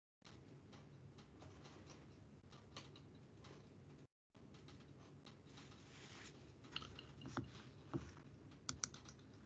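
Near silence: faint room hum from an open microphone with scattered soft clicks, cutting out briefly twice. In the last two to three seconds sharper clicks start, the beginning of computer keyboard typing.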